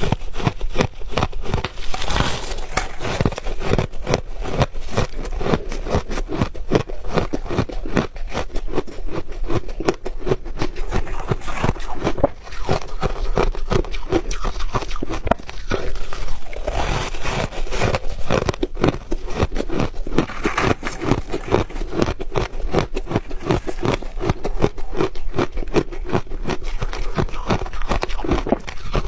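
A person chewing crunchy ice close to the microphone: a continuous run of rapid, sharp crunches and cracks, easing briefly about twelve seconds in.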